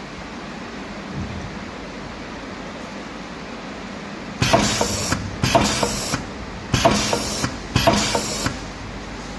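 Catheter tip forming and punching machine running with a steady hum, then four loud hissing bursts of air about a second apart, each starting with a sharp click, as the machine cycles.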